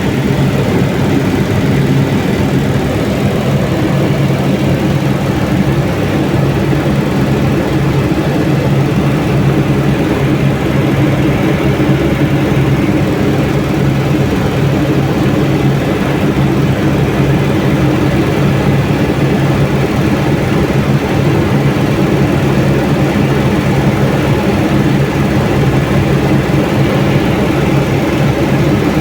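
Helicopter in flight: a loud, steady drone of engine and rotor, with a constant low hum and no change throughout.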